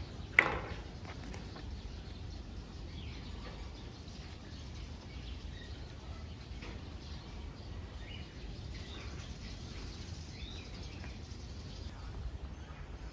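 Faint scattered chirping calls over a steady low background rumble, with one short sharp sound about half a second in.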